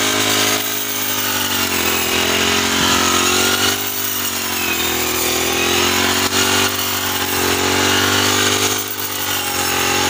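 Backpack brush cutter with a wheat-reaper blade, its small petrol engine running at high speed while it cuts standing wheat. The engine note dips and rises slightly a few times.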